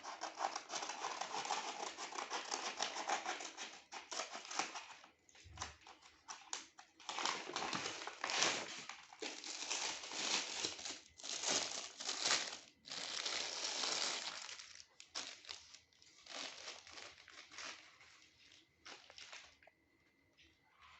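Packaging crinkling and rustling as it is handled and opened during an unboxing, in irregular bursts that thin out and grow fainter over the last few seconds.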